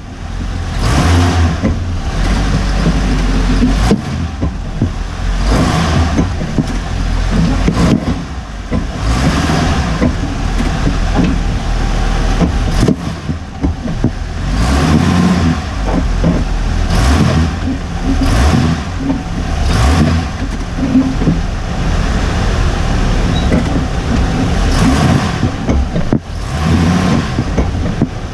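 Hummer H3 running, with occasional sharp clunks from the front differential bushing: a recently fitted new bush that the owner believes is fitted incorrectly or of poor quality.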